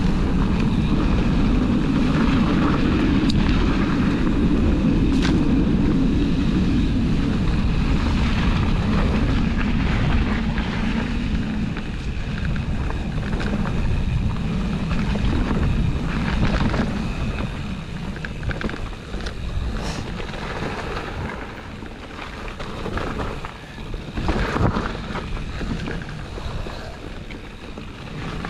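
Wind rushing over the microphone and tyres rumbling on a dirt trail as a mountain bike is ridden, loudest for the first twelve seconds or so. After that it eases into a lower, broken rumble with scattered rattles and knocks from the bike over rough ground.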